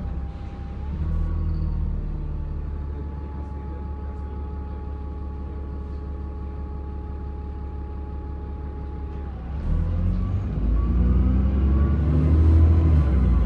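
Alexander Dennis Enviro400 Trident double-decker bus running, its turbo giving a steady high-pitched whine over the diesel engine. About nine seconds in the whine drops away, and the engine grows louder with its pitch climbing as it pulls harder.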